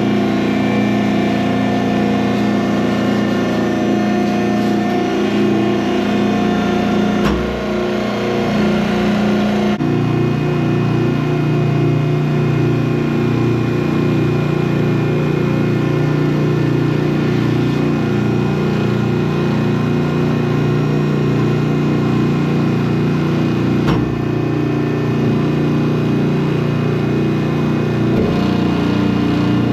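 Hydraulically driven barn machine running steadily, its tone shifting abruptly about 7, 10, 24 and 28 seconds in with a low thump as the ram stops and reverses direction.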